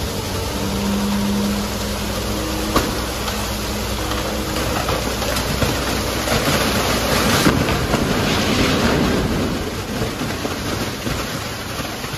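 Loose, wet garbage pouring off a tipped truck body into a transfer-station pit, making a continuous rushing, crashing noise. The truck's engine hums low underneath for the first half, and there is one sharp knock about three seconds in.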